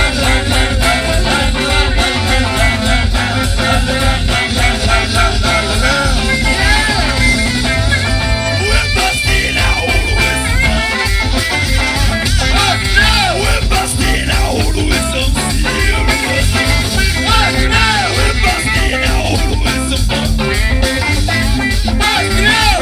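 Live band playing through a stage PA: saxophone, electric guitar and drum kit over heavy bass, with voices singing into microphones.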